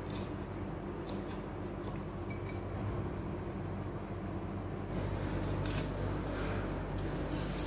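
Chef's knife chopping fresh herbs (coriander, then Vietnamese mint) on a wooden cutting board, in a few scattered strokes, over a steady low hum.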